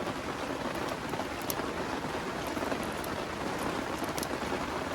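Steady rain falling, an even hiss with a few faint sharp ticks.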